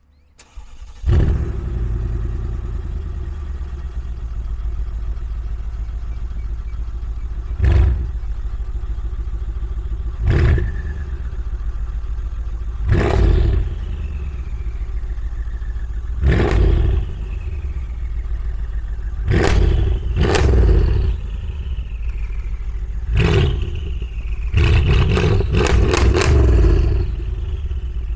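Straight-piped 2016 Mercedes CLS63 S AMG's twin-turbo 5.5-litre V8 starting about a second in, then idling with sharp throttle blips every few seconds and a quick run of blips near the end. After each blip comes a falling turbo whistle.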